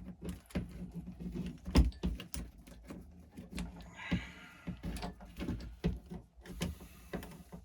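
Small plastic and metal parts of a radio-controlled truck clicking and knocking irregularly as they are handled and pushed into place, with one louder knock about two seconds in.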